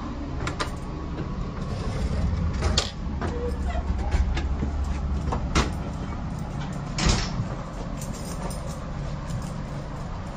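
The end door between Caltrain coaches being unlatched and opened, giving several sharp knocks and clicks over the steady low rumble of the train. The rumble swells for a few seconds in the middle.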